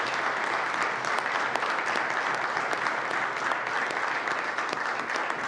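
Legislators applauding from their seats: a steady round of many hands clapping.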